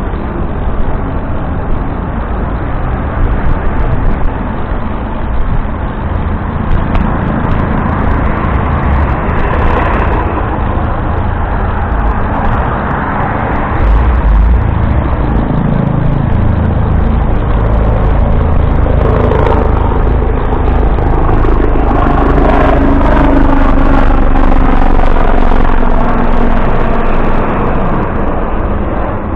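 Steady wind and road noise from riding through city traffic, heavy in the low end. A louder rumble comes about halfway through as a city bus is passed. Later a passing engine's note falls slowly in pitch.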